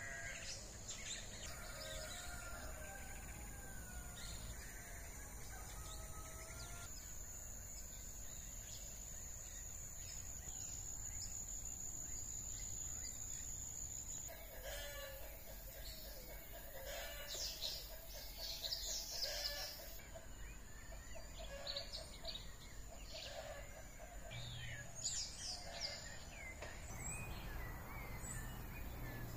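Village ambience: small birds chirping and calling, and a rooster crowing about halfway through. A steady high whine runs through the first half.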